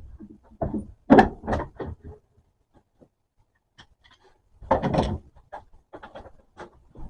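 Wood being handled on a workbench: a run of irregular scrapes, rubs and light knocks, with a busier cluster about a second in and again around five seconds in.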